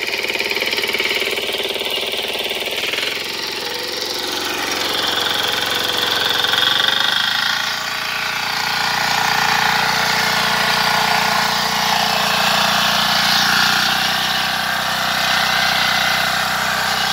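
Small walk-behind power tiller's engine running steadily under load as its tines till soil.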